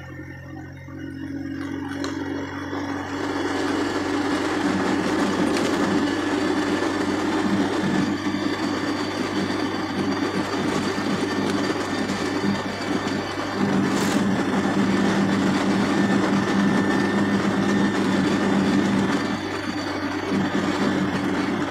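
Engine and road noise inside a moving vehicle's cabin, building over the first few seconds and then running steadily at cruising speed.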